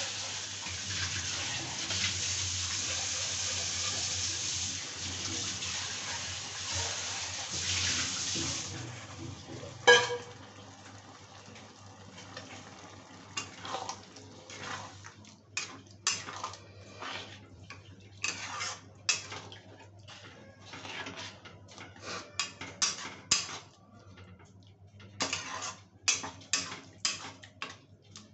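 A steady hiss for the first eight seconds or so, then a single clank about ten seconds in. After that a steel ladle stirs curry gravy in a metal kadai, scraping and clinking against the pan in quick irregular strokes.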